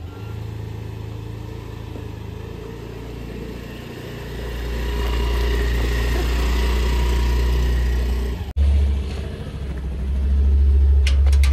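Motorcycle engine running while under way, getting louder about four seconds in and cutting out for a moment about eight and a half seconds in.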